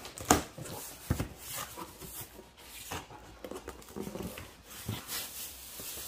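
Cardboard shipping box being opened by hand: flaps pulled open with cardboard scraping and rustling, and sharp knocks about a third of a second in and again about a second in.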